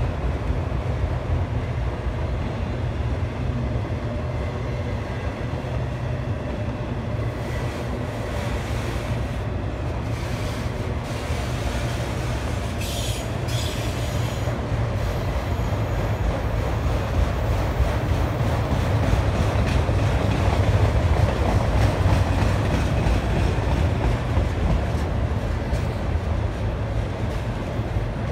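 Autorack freight cars rolling slowly past on steel wheels, a steady low rumble of wheels on rail, with a few short sharp knocks about ten to fifteen seconds in.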